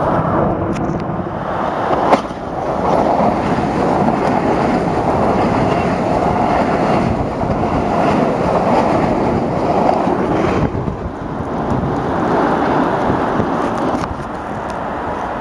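Metro-North commuter train coaches rolling past close by: a steady rumble of steel wheels on the rails, with a sharp click about two seconds in.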